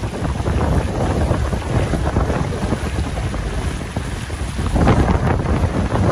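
Gusty winter storm wind buffeting the microphone in a steady low rumble, with a stronger gust near the end.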